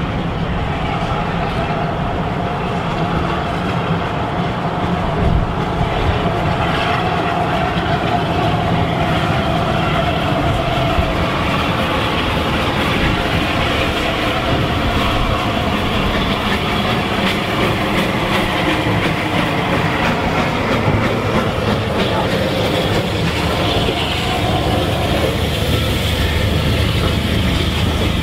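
Bulleid Battle of Britain class steam locomotive 34081 '92 Squadron' running into and through the station with its train, then the coaches' wheels clattering over the rail joints as they pass close by.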